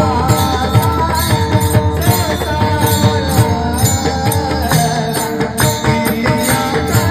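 Indian devotional-style music: a held drone note under a wavering melody line, with steady percussion strokes throughout.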